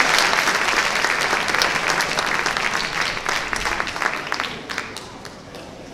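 Audience applauding, the clapping thinning out and fading away about five seconds in.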